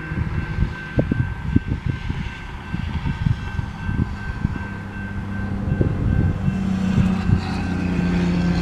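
Wind buffeting the microphone in irregular gusts over the rumble of an approaching freight train's GE diesel locomotives. The rumble grows louder from about six seconds in.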